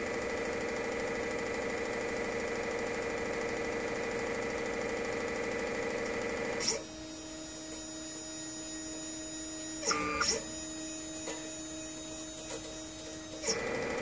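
Stepper motors of a modified Printrbot Play 3D printer running steadily with a whine as they move a comb of pins in a 96-well plate. About seven seconds in, a click and the whine drops to a lower, quieter hum, with two quick clicks around ten seconds. Near the end another click brings back the louder whine.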